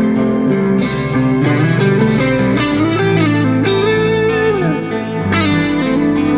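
Background music led by guitar, with held notes that slide up and down in pitch.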